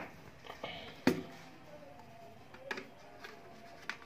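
Hard plastic parts of an electric air blower being handled: a few sharp knocks and clicks as the nozzle tube is picked up and fitted to the blower body, the loudest about a second in. The blower is not running.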